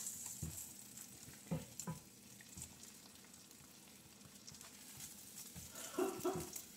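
An egg sizzling softly in butter in a frying pan as it is scrambled with a silicone spatula. There are a few short knocks and scrapes of the spatula, with two louder ones about six seconds in.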